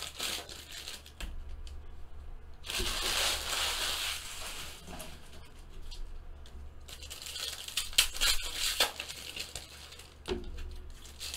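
Foil trading-card pack wrappers crinkling and tearing as packs are opened and handled, in several bursts of a second or two, with a few sharp clicks in between.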